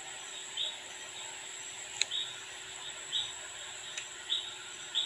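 Light handling of a Seiko 7S26 watch movement in its holder: two small sharp clicks, about two and four seconds in, over a faint steady hiss. A soft short sound repeats about once a second.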